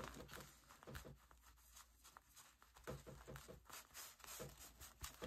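Near silence, with faint scattered taps and rustles of hands and a cloth pressing on a paper journal page.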